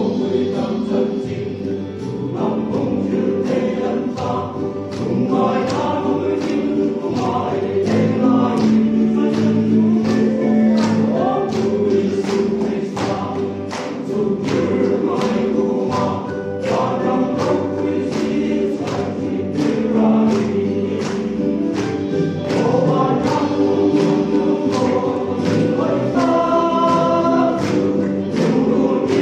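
Men's choir singing a gospel hymn in several parts, with a regular beat about twice a second under the voices.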